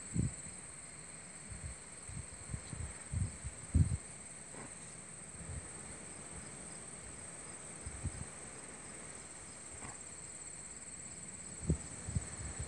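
Steady chorus of insects, a continuous high trill, with scattered low thumps on the microphone, the loudest about four seconds in and again near the end.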